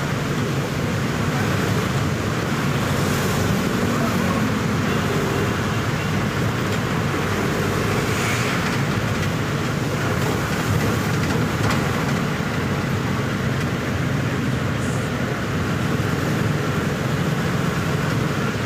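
Steady road noise inside a moving car: engine and tyres running on a wet road, a constant low rumble with a hiss on top.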